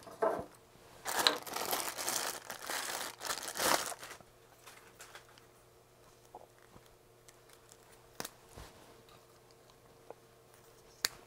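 Plastic packaging bag crinkling and tearing as it is slit open with a pocket knife, for about the first four seconds. Then quieter handling with a few light clicks and one sharp click near the end.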